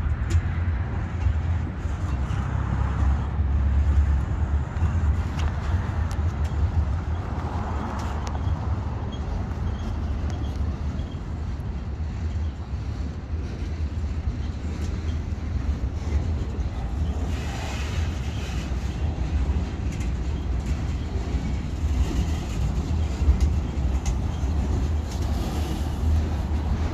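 Freight train cars rolling past, double-stack intermodal well cars and then autoracks: a steady low rumble of steel wheels on rail with scattered clicks and clanks.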